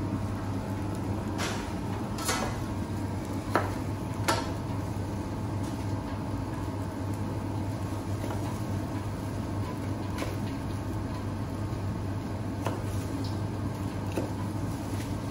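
Chef's knife knocking on a plastic cutting board while cutting bok choy, a few sharp knocks spread out over a steady low kitchen hum.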